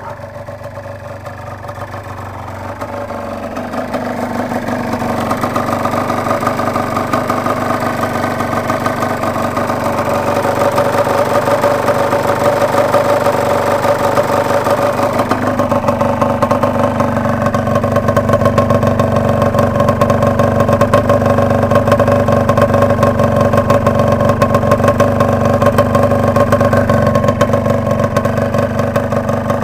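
Yamaha DT 125 R's single-cylinder two-stroke engine running steadily through a Giannelli aftermarket exhaust silencer, growing louder over the first ten seconds or so and then holding steady.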